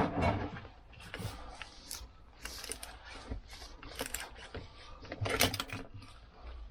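Irregular metallic clicks and clatter of hand tools and parts being handled at a workbench, with a sharp knock at the start and a louder burst of rattling a little over five seconds in.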